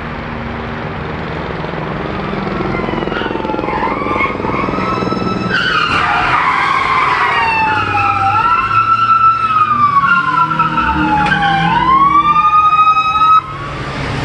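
Police car sirens, at least two at once, wailing with overlapping rising and falling tones as patrol cars pass, over the rumble of their engines. The sirens come in a few seconds in, grow louder, and cut off abruptly near the end.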